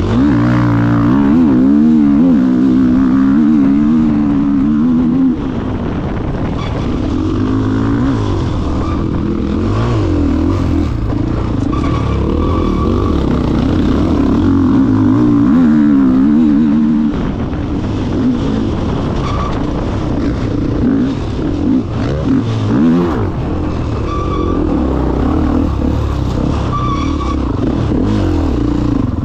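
Enduro motorcycle engine revving up and down again and again, the pitch rising and falling every second or so as the throttle is worked through an obstacle section.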